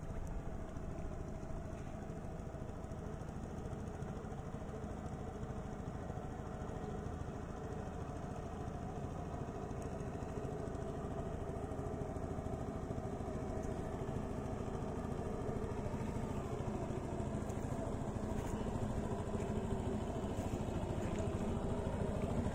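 Jabo 2AG GPS bait boat's motors running steadily, the hum growing gradually louder as the boat returns to shore under automatic return-home after losing the remote's signal.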